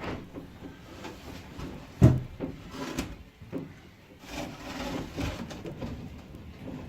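Handling noise as a camera is being mounted: rubbing and scraping with a run of knocks against wood and fittings, the loudest a sharp knock about two seconds in.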